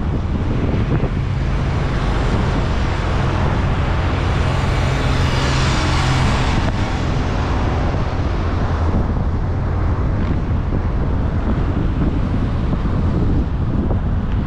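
Road and traffic noise from a moving car, with a steady low rumble and wind buffeting the microphone. A louder rushing hiss swells about four seconds in and fades by about seven seconds.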